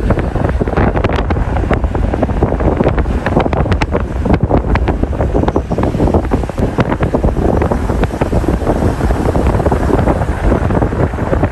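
Strong wind buffeting the microphone: a loud, continuous low rumble crossed by constant crackling.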